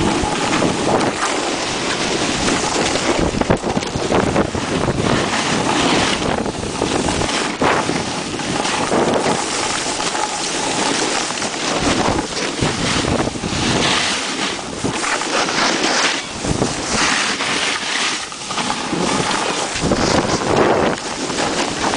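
Wind buffeting the camera microphone while a snowboard slides and scrapes over chopped-up snow on a fast run. The rushing hiss swells and fades in irregular surges.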